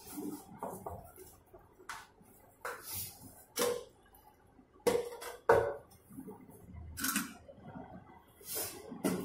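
Dough being worked by hand in a large metal bowl: scattered knocks and scrapes of hands and dough against the bowl. The bowl rings briefly at a few of the louder knocks, the loudest about five and a half seconds in.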